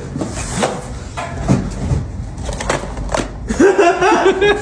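Scattered sharp knocks and clatter of hands and playing cards on a table, then a person's long drawn-out vocal sound near the end.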